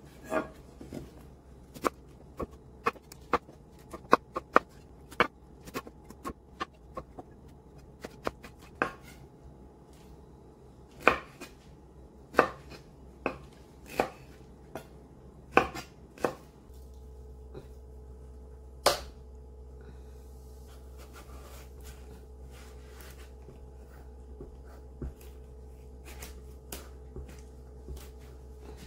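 Chef's knife cutting pineapple into cubes on a wooden cutting board: irregular sharp knocks of the blade striking the board. About halfway through they stop, giving way to a steady low hum with a single loud knock a couple of seconds later and a few faint taps.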